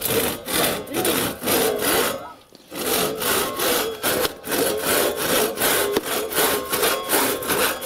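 Two-man crosscut saw being pulled back and forth by hand through a wooden board, rasping on each stroke. The strokes come in a steady run, with a short break about two and a half seconds in before sawing resumes.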